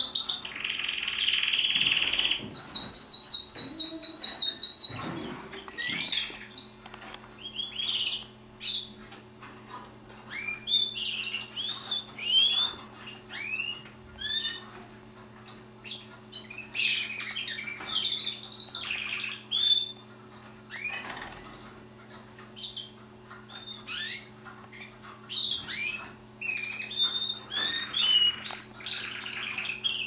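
Red-factor canaries: one sings a fast, even rolling trill a few seconds in, then several birds keep up short rising and falling chirps and calls.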